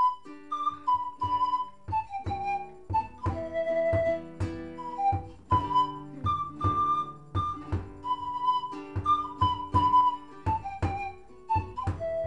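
Instrumental passage of Andean folk music: a flute plays a melody of held notes over guitar strumming in a steady rhythm.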